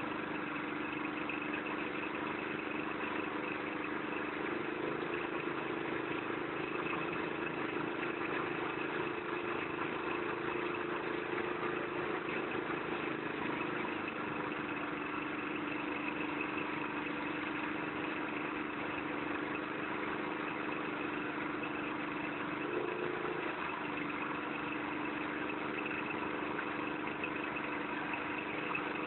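Engine-driven rice threshing machine running steadily, its pitch shifting slightly a few times as it goes.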